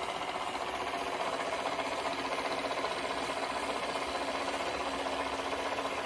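Small model steam engine of a model steam launch, fed by a Kingdon vertical boiler, running steadily with a rapid, even mechanical beat.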